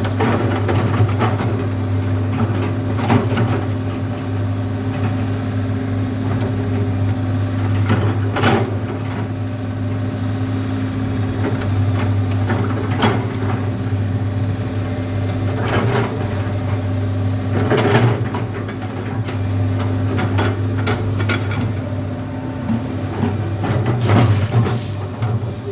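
Komatsu PC200 excavator's diesel engine running steadily under load. Sharp clanks and scrapes come every few seconds as the bucket digs into gravel.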